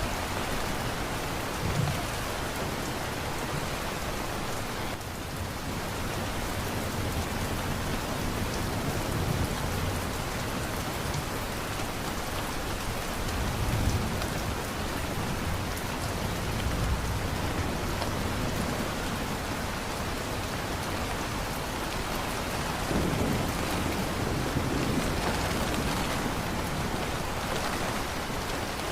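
Steady heavy rain falling, with low rolls of thunder swelling and fading several times.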